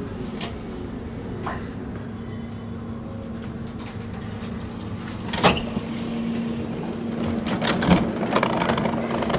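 Steady electrical hum of a standing DUEWAG B80D light-rail car, with scattered clicks and one sharp knock about five and a half seconds in, then more clatter near the end.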